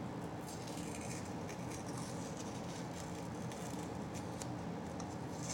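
Faint handling noises, with light rustles and a few small clicks from a painted plastic shift knob being worked by hand, over a steady low background hum.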